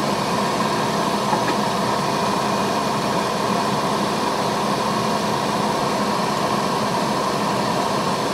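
Steady whirring of a fan running without change, with a constant hum under a broad rush of air.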